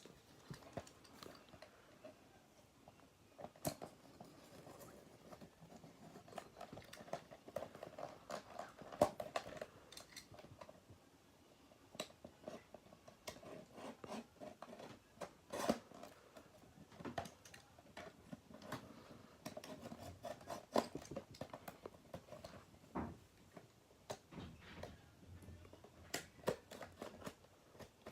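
Faint handling of a toy's packaging: scattered clicks, taps and short rustles of cardboard and plastic as a boxed figure is opened.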